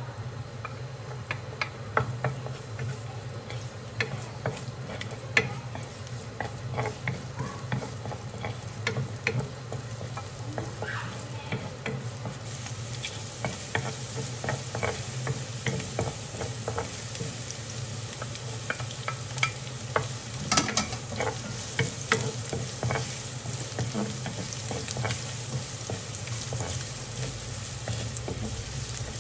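Minced garlic and ginger frying in oil in a nonstick pan, stirred with a wooden spatula. A steady sizzle runs under frequent scrapes and taps of the spatula against the pan, and the sizzle gets brighter and a little louder about twelve seconds in.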